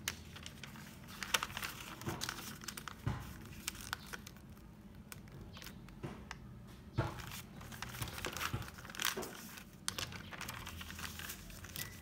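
Paper crinkling and rustling in irregular bursts as a sheet of printed wrapping paper is folded around a book, with a few soft thumps as it is pressed flat against a cutting mat.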